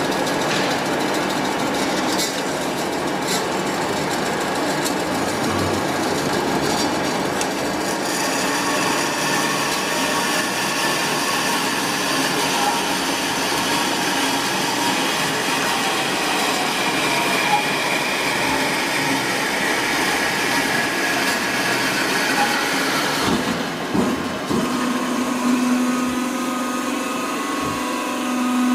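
Kasto PBA 320/460 AV automatic horizontal bandsaw running: a steady mechanical rattle and hiss. About 24 seconds in it changes, after a few knocks, to a steady low hum.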